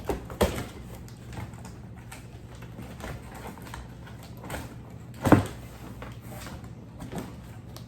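Cardboard shipping boxes being handled and opened: scattered scraping, rustling and short knocks, the loudest knock about five seconds in.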